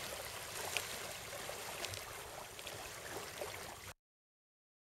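Shallow sea water lapping softly around the legs and at the shoreline, an even hiss with a few small splashes. It cuts off abruptly about four seconds in.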